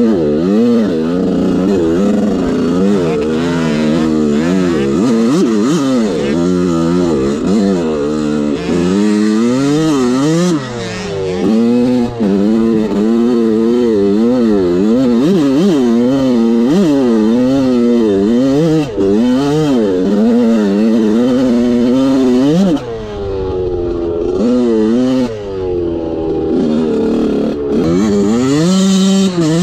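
Dirt bike engine revving hard up and down through the gears while riding, its pitch rising and falling every second or so. There is a brief lull about three-quarters of the way through where the throttle closes.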